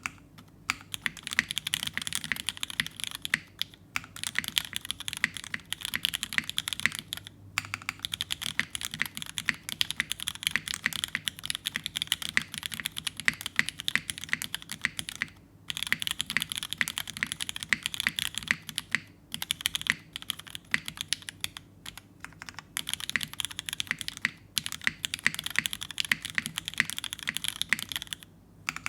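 Fast continuous typing on a mechanical keyboard with lubed vintage Cherry MX Black linear switches in a top-mounted full aluminum plate with no foam, under Cherry keycaps: a dense run of clacking keystrokes, broken by a few short pauses.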